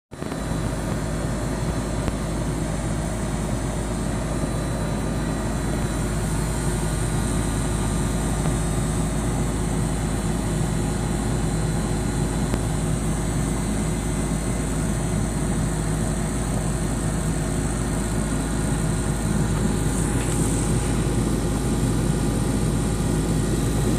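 Air conditioner condenser unit running: a steady mechanical hum with several constant tones and a deep low drone.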